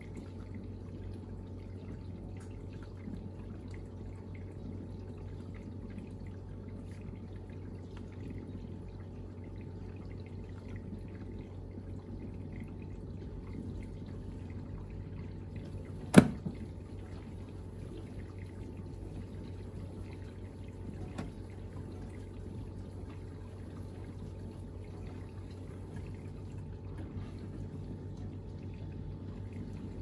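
Bosch dishwasher mid-cycle on its Pots and pans 70°C program: its circulation pump hums steadily while water sprays and splashes inside the tub. One sharp click sounds about halfway through.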